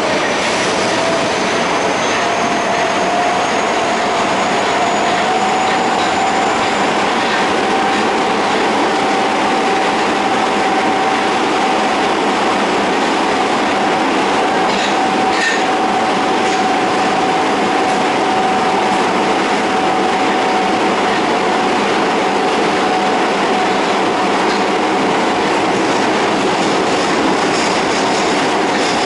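Interior running sound of an Osaka Metro 22 series subway car with a Hitachi GTO-VVVF traction inverter. The motor and inverter whine rises in pitch over the first several seconds as the train gathers speed, then holds steady over the constant rumble and clatter of the wheels on the rails.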